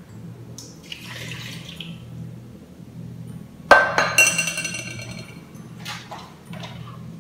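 A cup of water poured into the Instant Pot's stainless steel inner pot. About three and a half seconds in, a sharp glassy clink as the measuring cup is set down in a glass bowl, ringing briefly. A few lighter clicks and knocks near the end as the pot's lid is handled.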